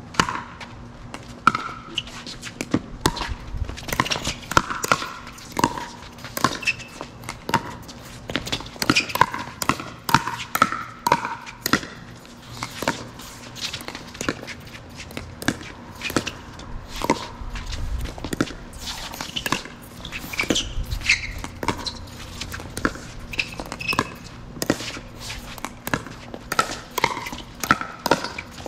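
Pickleball rally: a long run of sharp pops from paddles striking the plastic ball and the ball bouncing on the court, coming irregularly, sometimes in quick volleys.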